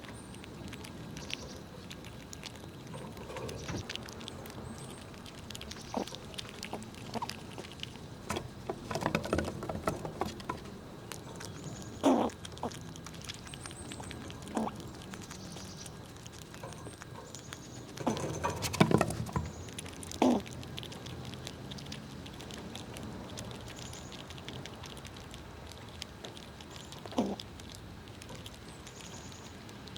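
Squirrels eating nuts: scattered cracking, clicking and scrabbling sounds over a steady hiss, with busier clusters about nine seconds in and again about nineteen seconds in.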